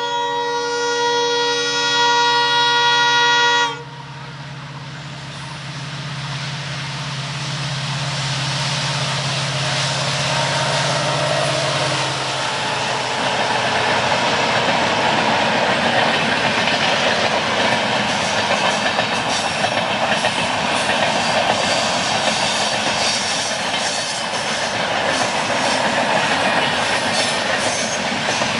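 A WDP4D diesel locomotive sounds its multi-tone horn in one long blast of about four seconds, over the steady drone of its engine. About twelve seconds in, the drone gives way to the louder rush of the train passing, with wheels clicking over the rail joints.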